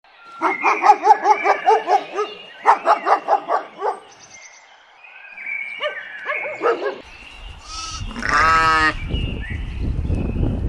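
Domestic animals calling: two runs of rapid pulsed calls in the first four seconds, then several shorter calls and a louder, longer call about eight seconds in. A low rumbling noise runs underneath from about seven seconds on.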